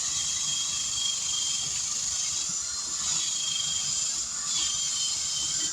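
A power tool with a wire wheel running steadily as it scrubs corrosion off the wheel rim's bead seat, a high-pitched hissing grind. It cuts off right at the end.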